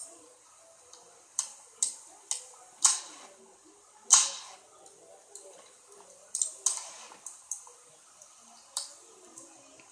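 Wood fire crackling, with sharp pops coming at irregular intervals, about a dozen of them, the loudest about four seconds in, over a faint hiss.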